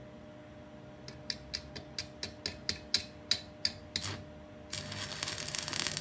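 Electric arc welding: a string of short, sharp arc crackles about four a second, as the weld is laid on in short stitches, then a couple of seconds of continuous arc crackle near the end.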